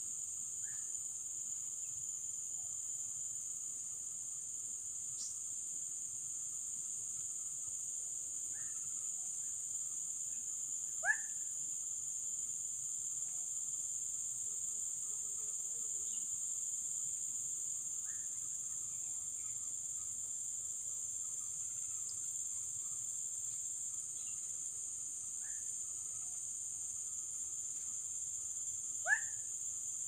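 Steady high-pitched insect drone, with a handful of short rising bird calls; two of them, about eleven seconds in and near the end, are sharper and louder.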